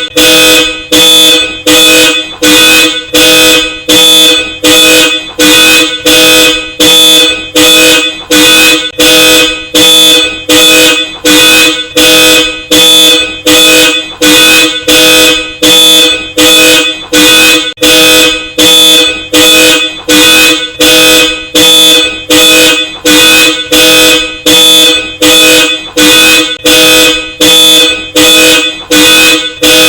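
Car alarm sounding a Hella Supertone dual-tone horn in a steady run of short, evenly spaced honks, more than one a second.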